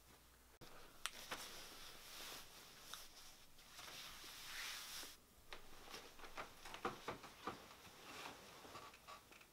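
Faint rustling of clothing as a person changes, then rustling of bedding as he gets into bed under a duvet, with many small soft clicks and brushes.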